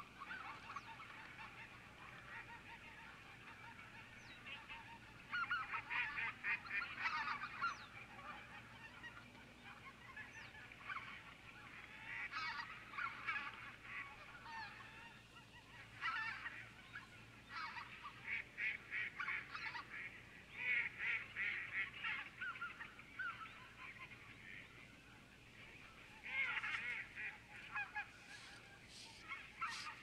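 A flock of wild geese honking, many calls overlapping in bouts that swell and die away several times.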